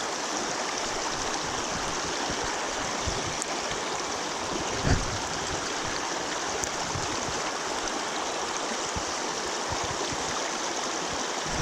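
Steady sound of flowing river water, with one brief soft thump about five seconds in.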